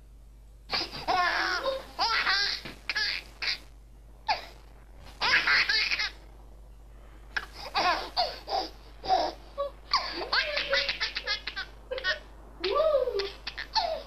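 Baby laughing in repeated bursts of giggles and belly laughs, with short pauses between the bursts.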